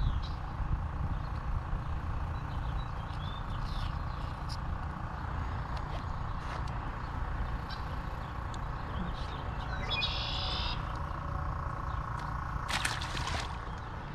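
Outdoor ambience: a low steady rumble with scattered bird chirps, a short trill about ten seconds in, and a brief burst of noise about a second before the end.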